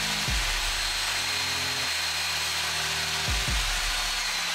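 Lotus LTST254RPF PRO 2000W table saw running with its blade cross-cutting a small wooden board. It makes a steady high whine over a dense cutting noise. Near the end the whine starts to drop in pitch as the saw winds down.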